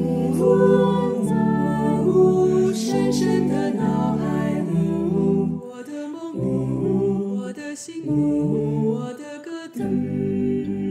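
Mixed-voice a cappella group singing a Chinese pop song in close harmony, with a low sung bass line moving in stepped notes beneath the chords.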